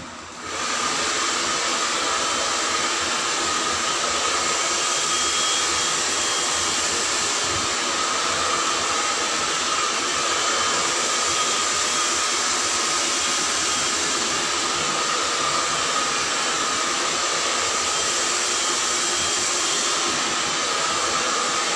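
Hair dryer switched on about half a second in, then blowing steadily: a constant rush of air with a steady whine in it.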